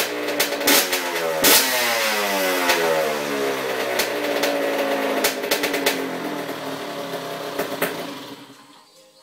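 Honda CR85R 85cc single-cylinder two-stroke motocross engine running on the stand, blipped once about a second and a half in, with sharp pops scattered through it. Its revs then sink slowly and it stops a little after eight seconds in.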